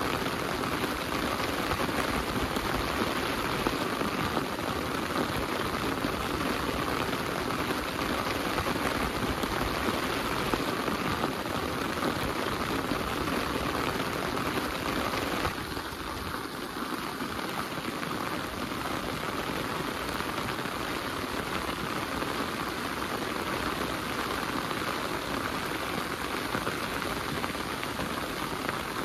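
Heavy rain falling, a dense steady patter. About halfway through it drops abruptly to a slightly softer, duller level.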